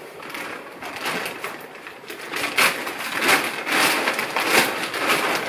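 Plastic poly mailer bag crinkling and rustling as it is gripped and pulled open by hand, in irregular crackles that grow louder and denser about halfway through.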